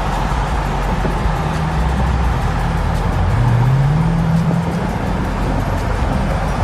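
A car driving, its engine and road noise steady and loud, with music playing along with it; a low tone rises briefly near the middle.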